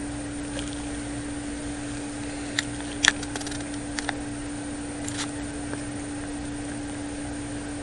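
A steady low hum under a faint hiss, with a few short sharp clicks between about two and a half and five seconds in, the loudest near three seconds.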